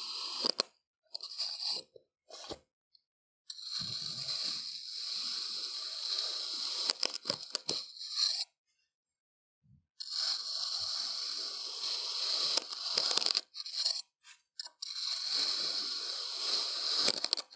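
Kitchen knife slicing through molded kinetic sand: a grainy, crunchy scraping. It comes as a few short cuts at first, then three long strokes, each a few seconds long, with brief pauses between them.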